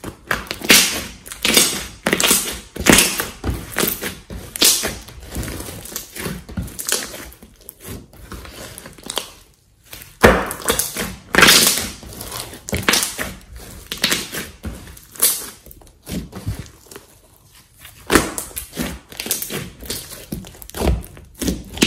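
Thick slime being squished, pressed and folded by hand: a run of irregular wet squelches, some much louder than others, with a short pause about ten seconds in.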